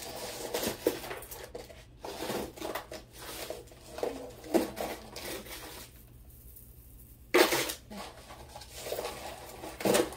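Costume jewelry clinking and rattling as pieces are handled and sorted by hand: beads, chains and metal pieces jostling in several irregular bursts, with a sharper, louder clatter about seven seconds in.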